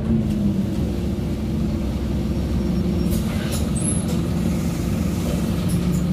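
Scania OmniCity N270UD double-decker bus's five-cylinder diesel engine heard from inside the lower deck, its note dropping in the first second as the bus slows, then running steadily at low revs. A few short clicks sound a little after the middle.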